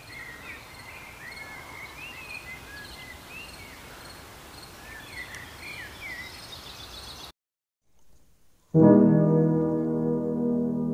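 Night-time nature ambience: steady crickets and short bird chirps over a soft hiss, cutting off abruptly about seven seconds in. After a second and a half of silence, a loud sustained musical chord comes in and slowly fades.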